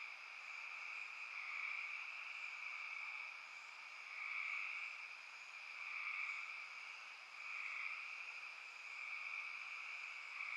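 Steady high-pitched chorus of night-calling insects and frogs in a summer backyard, swelling and easing about every second and a half.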